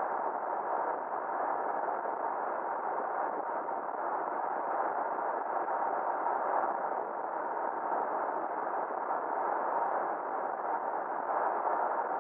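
Steady, muffled wind and road noise of a truck driving at speed, picked up by a camera mounted on the vehicle. A faint steady hum runs underneath.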